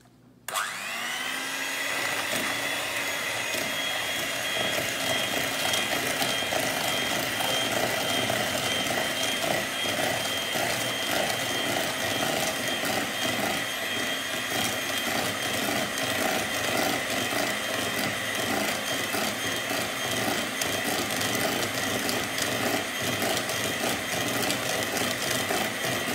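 Electric hand mixer whipping egg whites and sugar in a plastic bowl towards a thick foam. The motor starts about half a second in, its whine rising as it spins up, then runs steadily.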